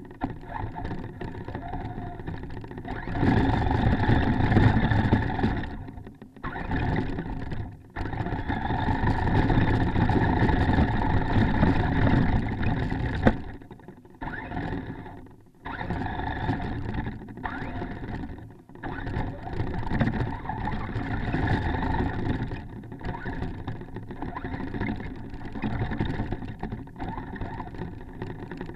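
Onboard sound of a Traxxas Stampede RC truck driving through snow: its motor and drivetrain running under throttle, with tyres on snow and ice. It comes in bursts that cut off sharply several times as the throttle is let off, then picks up again.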